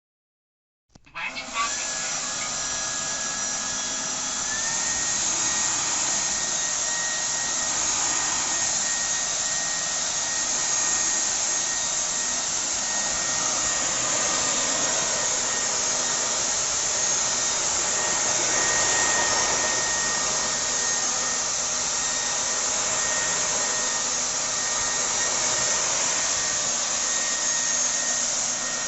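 JONR XQ02E cordless wet-dry floor-washing vacuum running steadily, a constant motor whine over an even rushing hiss, as it picks up spilled milk and oatmeal from the floor. The sound starts abruptly about a second in.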